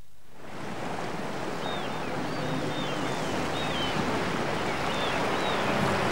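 Sea waves and wind fading in and growing steadily louder, with short high gliding cries repeating over them.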